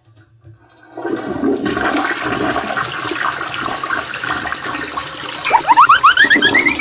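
Toilet flushing: a rush of water starts about a second in, with a quick run of rising gurgles near the end.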